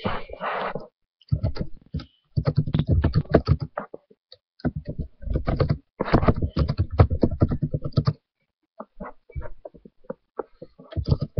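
Computer keyboard typing in quick bursts of key clicks with short pauses between them, sparser towards the end.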